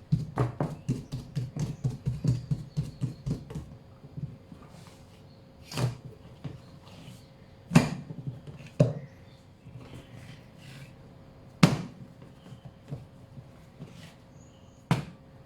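A quick run of sharp taps, about five a second, that stops about four seconds in, followed by a handful of single sharp knocks a second or more apart, from hands-on kitchen work.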